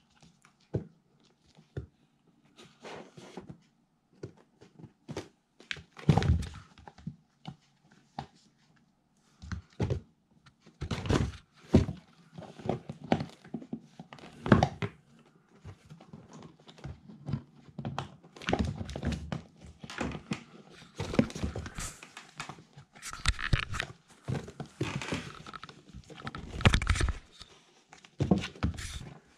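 Two kittens scuffling in and against a cardboard box: irregular thuds and knocks of paws and bodies hitting the cardboard and the floor, coming thicker and louder from about ten seconds in.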